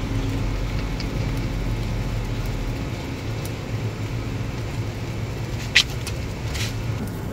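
A steady low mechanical hum with a faint hiss over it, with a few light clicks and a short sharp tick about six seconds in.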